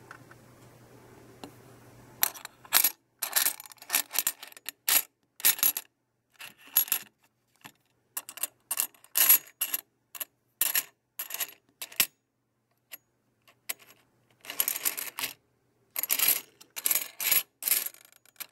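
Loose metal 3-euro coins being stirred and pushed by hand in a heap, clinking and jingling against each other in short bursts about a second apart, with longer rattles near the end. A faint low hum is heard before the first clink.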